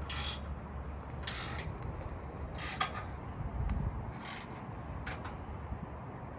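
Hand ratchet wrench clicking in short strokes about a second apart, tightening the bolts of a steel front bumper being mounted on a truck.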